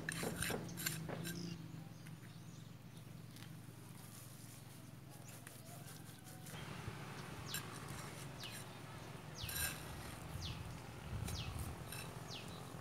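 Trowel clicking and tapping on concrete blocks during bricklaying with mortar, then outdoor background noise with a run of short, high, falling chirps.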